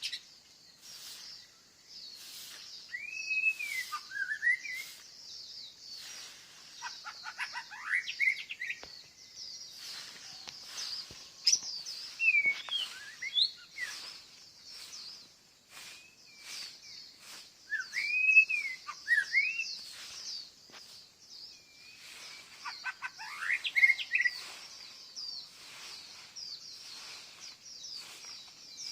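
Wild songbirds singing. One bird twice gives a loud phrase of arching whistled notes followed by a quick run of rising notes, over a steady high chirring chatter.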